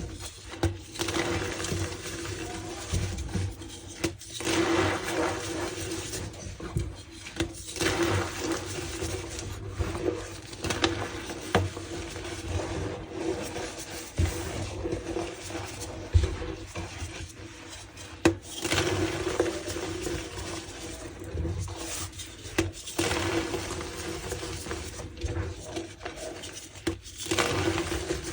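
Blocks of reformed gym chalk being squeezed and crumbled by hand, giving irregular crunches and squeaks every second or two.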